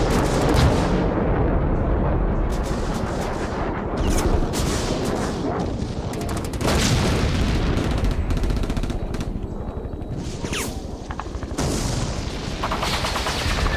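Battle sound effects: rapid gunfire and heavy booms over a continuous low rumble.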